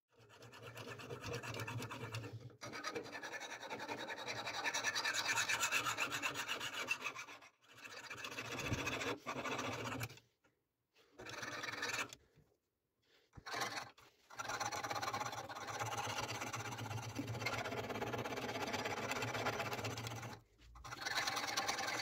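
Sharpening stone on a guided-rod sharpening jig rasping back and forth along a knife's edge, in long continuous runs broken by several short pauses.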